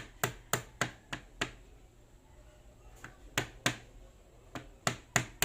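Knife chopping ginger on a cutting board: sharp taps about three a second, stopping for about two seconds midway before starting again.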